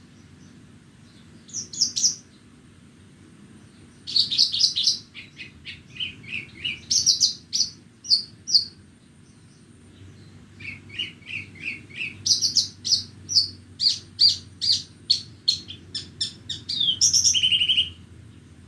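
Horsfield's bush lark (branjangan) singing in fast phrases of repeated high chirping notes with short pauses between: a brief phrase about a second and a half in, then two long runs of varied trills. A faint steady low rumble lies underneath.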